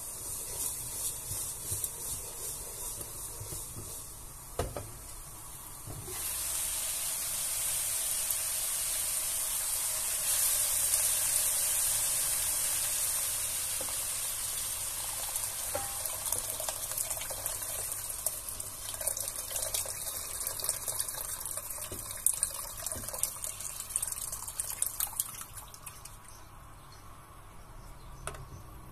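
Meat and onions sizzling in a hot pot, with a couple of knocks about five and six seconds in. Then water is poured in from a jug, splashing and hissing against the hot pan for about twenty seconds. Near the end it settles to a quieter crackle as a wooden spatula is stirred through.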